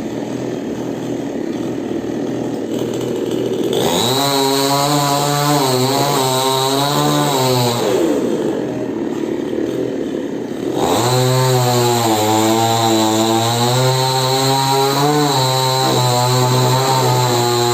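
Two-stroke chainsaw running low, then revved hard about four seconds in as it cuts into a coconut palm trunk, its pitch wavering under load. It eases back for a few seconds, then revs up and cuts again through the rest.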